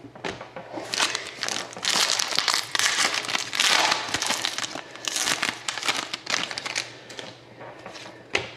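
Plastic wrapper of a Panini Contenders hockey card pack crinkling loudly as it is handled and opened, dying down to a few light rustles near the end.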